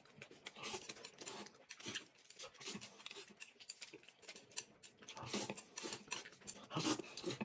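Close-miked eating sounds: chewing and small wet mouth clicks, irregular, growing a little louder and busier about five seconds in.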